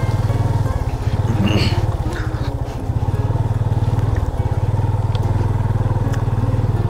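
Motorcycle engine running steadily under way, easing off briefly a couple of times.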